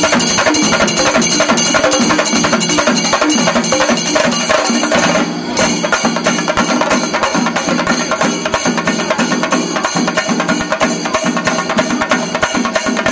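Shinkari melam: a row of chenda drums beaten fast with sticks, over the ringing of ilathalam hand cymbals, in dense rapid strokes. The beat briefly drops out about five seconds in, then carries on.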